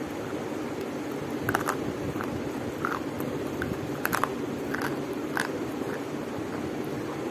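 Close-up biting and chewing of hard white chalk sticks: about ten sharp crunches and snaps at irregular intervals, with a quick cluster around the middle.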